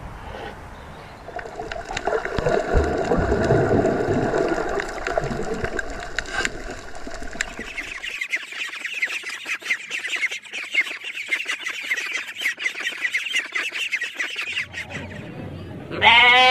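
A tiger growling low and long through the first half. Then a brood of ducklings peeping in rapid high notes. About a second before the end, a sheep bleats once, loudly.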